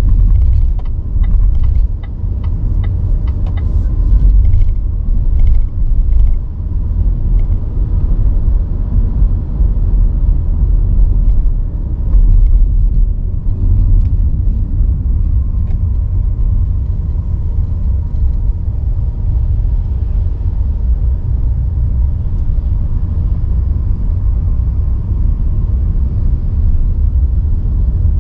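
A car driving on city roads: a steady, loud low rumble of tyres and running gear, with a run of short light clicks or rattles in the first several seconds and a few more about halfway through.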